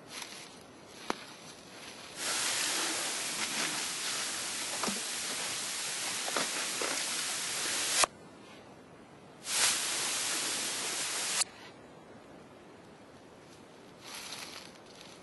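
Dry leaf litter rustling and crunching underfoot as someone moves through it, in two loud stretches that each stop sharply, about eight and eleven seconds in.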